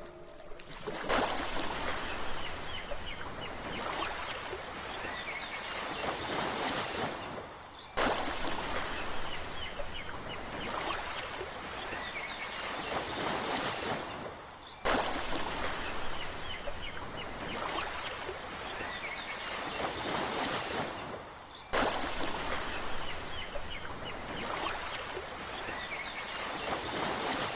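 Recorded nature ambience of steady rushing water with faint high chirps, played as a loop that cuts off and restarts abruptly about every seven seconds.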